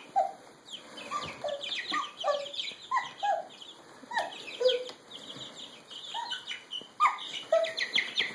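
Several baby chicks peeping, a steady stream of short, overlapping high cheeps that each slide downward in pitch, with some lower notes mixed in.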